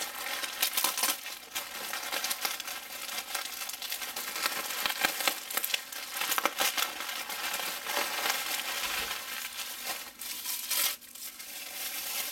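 Plastic bubble wrap crinkling and crackling as it is pulled open and unwrapped by hand, a dense run of small crackles with a brief lull about ten seconds in.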